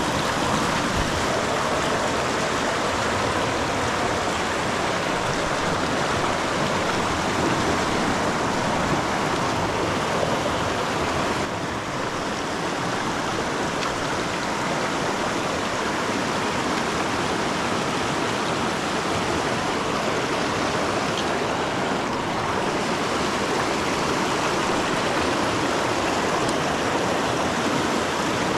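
Mountain creek water rushing and splashing over rocks, a steady, even sound.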